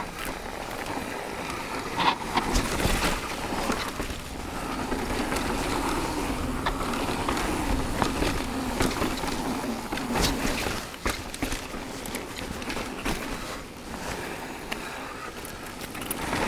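Mountain bike rolling down a rough trail: tyre noise over dirt and rock, broken by frequent sharp knocks and rattles from the bike. A faint wavering whir runs for several seconds in the middle.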